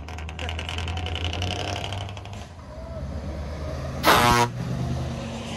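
Scania V8 truck engine running with a deep, steady rumble, and a short, loud truck horn blast about four seconds in.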